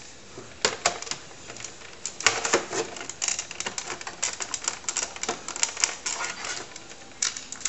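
Hard plastic clicks and rattles of a disk controller cartridge being handled and pushed into a computer's cartridge slot: a few scattered clicks, then a fast run of clicking and rattling from about two seconds in.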